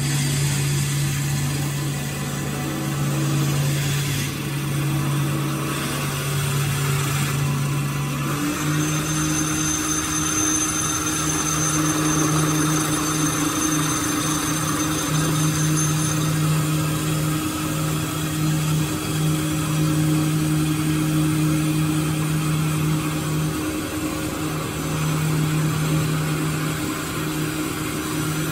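Automatic copying wood lathe running and cutting a wooden blank: a steady motor hum under the hiss of the cutter taking off shavings. About eight seconds in, the hum steps slightly higher in pitch.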